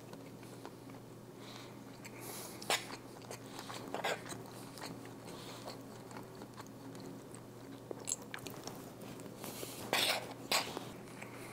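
A man chewing and biting mouthfuls of chicken and rice close to a clip-on microphone, with a few short clicks and knocks along the way. A faint steady hum lies underneath.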